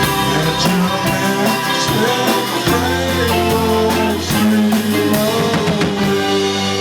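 Indie pop band playing live in an instrumental passage, with guitar and drums over sustained low notes that change about two and a half seconds in.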